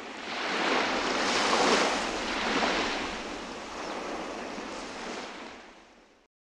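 Water washing like small waves: a noisy rush with no tones that swells about a second and a half in and eases again. It is faded in at the start and faded out near the end.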